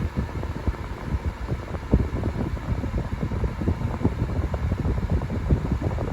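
Electric fan running steadily, its airflow buffeting the microphone with irregular low rumbles.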